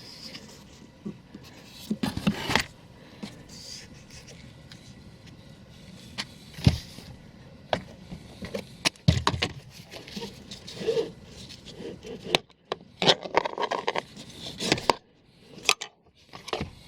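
Hands and tools working on a car's interior trim: irregular clicks, knocks and scrapes, with a few sharper knocks standing out.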